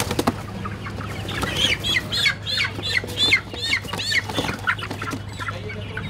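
Desi hens squawking while they are handled and pushed into cardboard boxes: a quick run of sharp, falling squawks in the middle, with scattered knocks and scuffling.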